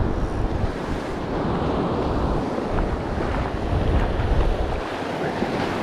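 Surf breaking and washing up the beach, with wind buffeting the microphone in uneven low rumbles.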